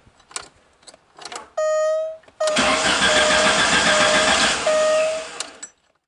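Alfa Romeo Spider engine cranking on the starter for about three seconds without catching, after a few clicks from the ignition and a short steady whine as the key is turned on. A whine of the same pitch comes and goes over the cranking. The car won't start because its high-pressure electric fuel pump is failing.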